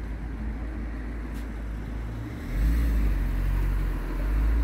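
Low, steady road and engine rumble heard from inside a moving vehicle, swelling louder about two and a half seconds in.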